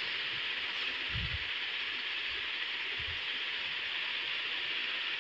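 Steady background hiss, with a few faint low thumps about one and three seconds in.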